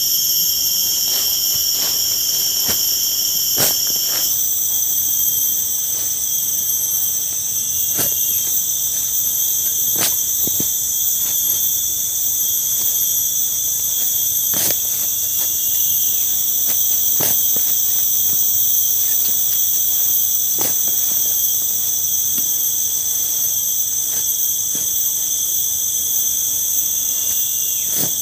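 Loud, steady, high-pitched chorus of insects. Over it come sharp knocks at irregular intervals a second to a few seconds apart, from a hand tool striking the ground as a hole is dug.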